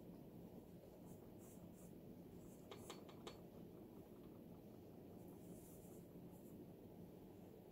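Faint pencil scratching on paper in a spiral-bound notepad while drawing, with a quick run of light ticks about three seconds in.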